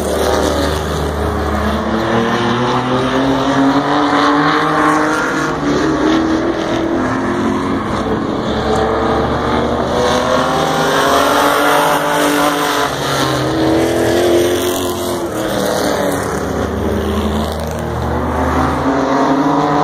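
Several race cars lapping an oval track, their engines revving up and down together. The pitch rises and falls again every few seconds as the pack comes out of the turns and passes.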